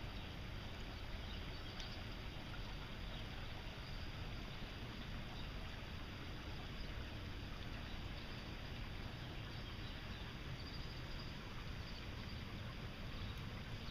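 Water from a broken water main flowing steadily across the yard in a continuous rushing stream.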